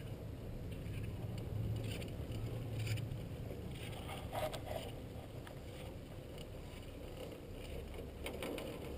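Chairlift ride: a steady low rumble from the moving chair and haul rope, with a few light clicks and rattles between about two and five seconds in.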